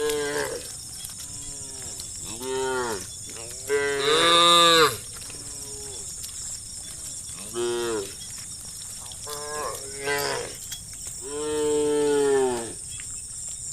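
Cattle mooing in turn, about seven moos of differing pitch that each rise and fall. The loudest comes about four seconds in and a long one near the end, over a steady high-pitched hiss.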